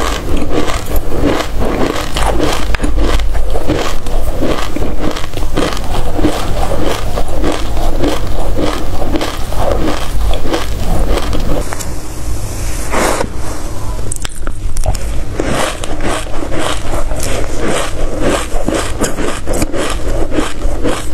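Close-miked chewing of a mouthful of dry black seeds: a dense, continuous crunching and crackling, with a metal spoon scraping the steel tray now and then.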